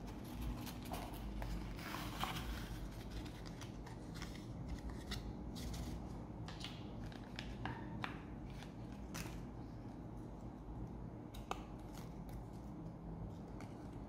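Cardboard box and paper leaflets being handled by hand: irregular rustles, light taps and scrapes of card and paper. A low steady hum runs underneath.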